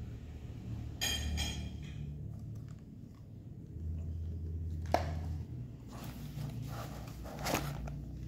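Handling noise from hands moving a plastic folding drone and its zippered foam carry case: a crinkle about a second in, a sharp knock near the middle, then rustling with another knock near the end.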